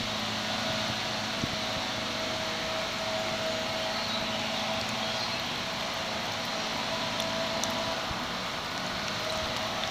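Steady rush of flowing stream water close to the microphone, an even hiss with no change in level.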